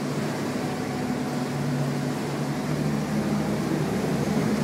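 Boat's engines droning steadily, with a few low humming tones.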